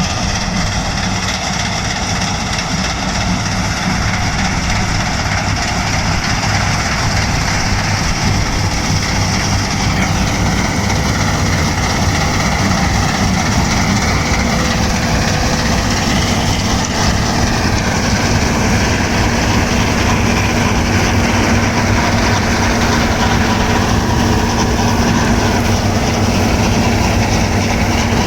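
New Holland TC5.30 combine harvester running at work in wheat: a steady, loud mechanical din of engine and machinery, with a high whine that drifts up and down in pitch from about a third of the way in.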